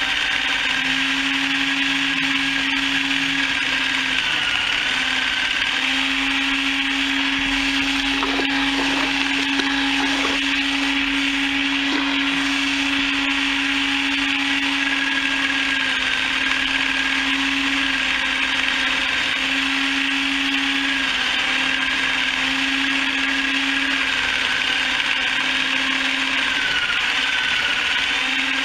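Motor-driven chicken plucker running steadily, a continuous whirring hum with a slightly wavering whine and a few light knocks about eight to twelve seconds in.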